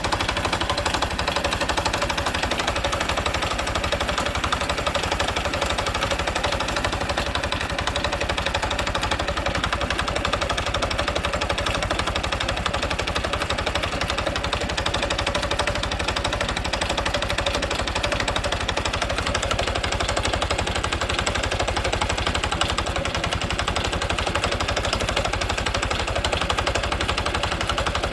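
Honda Super Cub 110's air-cooled single-cylinder four-stroke engine running steadily with a rapid, even pulse.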